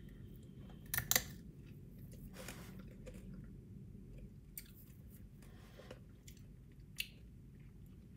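A person chewing hard candy, with a pair of sharp crunches about a second in and a few fainter clicks later.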